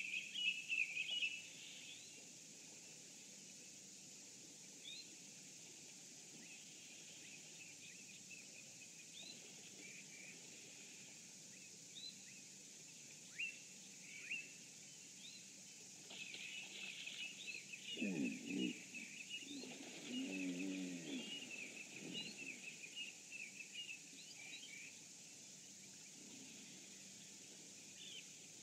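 Wild birds chirping and trilling in the bush, busiest at the very start and again through the second half. A little past the middle, a low pitched animal call sounds twice in close succession.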